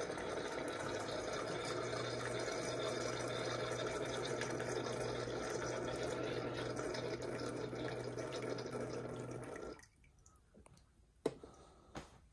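Keurig single-cup coffee maker brewing: its pump hums steadily while coffee streams and drips into a glass mug, then the brew cuts off abruptly about ten seconds in. Two short clicks follow near the end.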